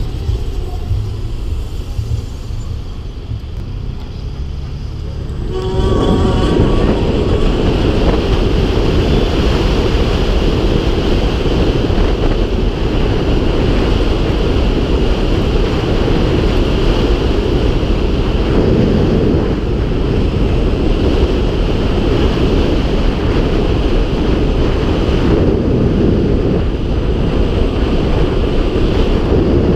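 Wind buffeting the camera microphone on a 2016 Zero FXS electric motorcycle. Low traffic rumble while stopped gives way, about six seconds in, to a loud steady rush of wind as the bike pulls away and holds speed. The electric motor itself is nearly silent under the wind.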